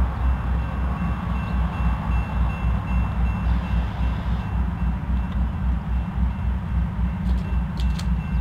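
Diesel freight locomotive engines rumbling with a low, pulsing throb as a train approaches. A faint, thin high tone runs over it from about half a second in.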